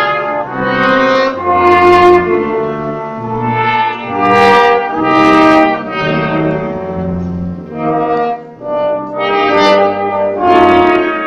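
Brass quintet of two trumpets, French horn, trombone and tuba playing a piece in harmony, held notes changing chord every second or so over a tuba bass line, with a brief lull about eight seconds in.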